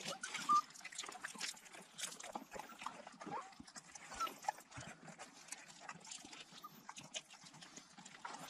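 African wild dogs scuffling and moving about in sand close to the microphone, with irregular scratching and clicking throughout. A few short, high squeaks come from the pack near the start and again about four seconds in.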